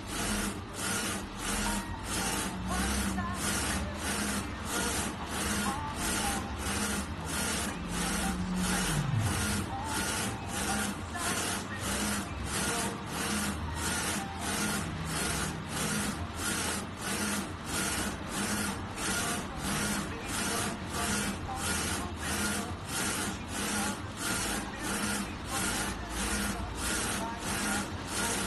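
6090 UV flatbed printer running, its print carriage shuttling back and forth in a steady rhythm of a bit under two passes a second. About nine seconds in, a low motor tone drops in pitch.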